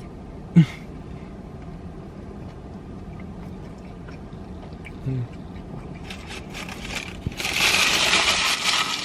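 Eating sounds in a car: faint small mouth clicks while chewing, two short hums, and about a second and a half of loud crinkly rustling near the end.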